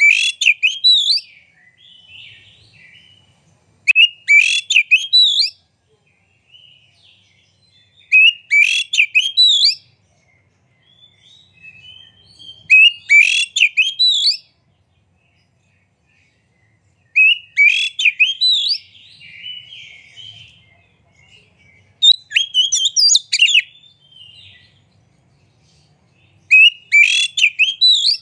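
Male oriental magpie-robin (kacer) singing in full voice: seven loud, rich whistled phrases, each about one and a half to two seconds long, come roughly every four to five seconds, with soft chattering between them.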